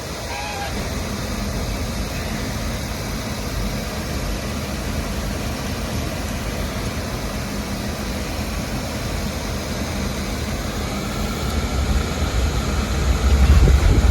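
Oil burner of a Weil-McLain oil-fired boiler switching on abruptly and running steadily, its blower and flame making a dense rushing noise. The sound swells louder with a deeper rumble near the end.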